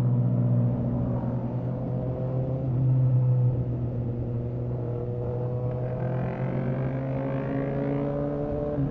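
Suzuki GSX-S750 inline-four running through a Yoshimura R11 exhaust with the dB killer removed, heard while riding. It gets louder briefly about three seconds in, then the engine note climbs slowly in pitch as it gains revs.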